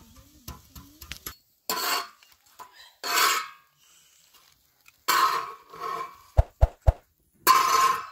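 Flat metal spatula scraped across a round iron griddle in four separate strokes, loosening and lifting a sheet of oak bread, with three short dull knocks of the spatula on the griddle a little after the third stroke.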